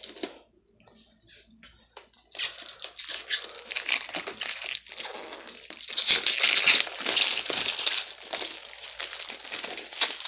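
Plastic shrink-wrap crinkling and tearing as it is pulled off a CD box set, starting about two seconds in and loudest around the middle.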